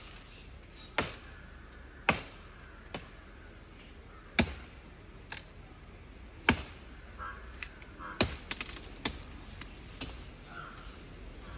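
Sharp chopping strikes of a blade hacking at plant stems and branches, about ten of them spaced roughly a second apart, with a quick run of several knocks about two-thirds of the way through.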